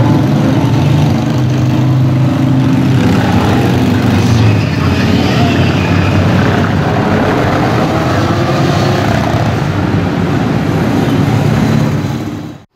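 A stream of cruiser motorcycles riding past one after another, their engines and exhausts running loud and overlapping without a break. The sound cuts off suddenly near the end.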